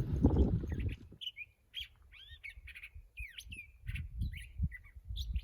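A songbird singing a quick, varied run of short chirps and curving whistled notes, starting about a second in, after a second of low rumbling noise.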